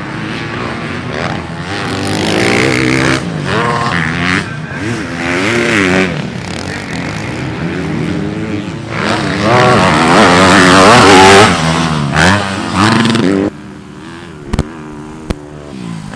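Dirt bike engines racing, revving up and falling back again and again as the riders shift and throttle. The sound drops away sharply about 13.5 seconds in, and a few sharp knocks follow.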